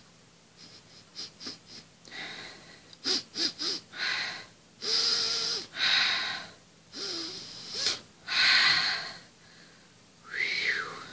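A person making wordless, breathy vocal noises in a string of short bursts, some with a squeaky pitched sound, one near the end gliding up and back down in pitch.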